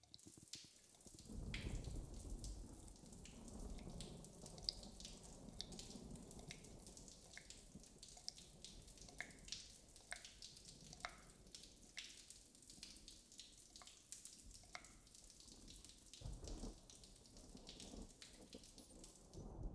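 Faint water dripping and trickling down a drain: irregular sharp drips, a couple each second, over a soft low rush of running water that swells briefly near the start and near the end.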